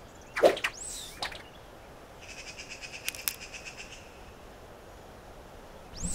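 Cartoon sound effects: a sharp falling zip about half a second in and a few short swooping squeaks, then a rapid high chittering trill lasting about two seconds with two clicks in it. Music swells back in at the very end.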